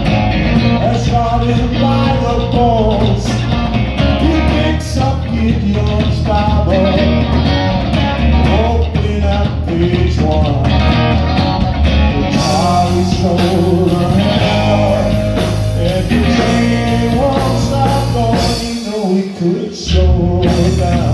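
Live rock trio playing: electric guitar, electric bass and drum kit, with a singing voice. The cymbals come in harder about twelve seconds in, and the bass and drums drop out for about a second near the end before the band hits back in.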